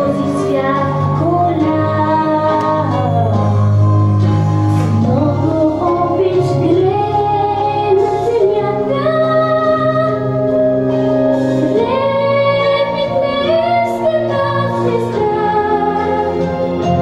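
Music with a high voice singing a melody over accompaniment, with long held notes and sliding pitches.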